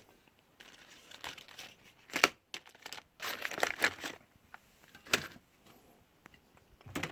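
Steel drawers of a Snap-on KRA tool box being worked between drawers, with scrapes and sharp clicks as drawers slide and tools shift. The loudest knock comes about two seconds in.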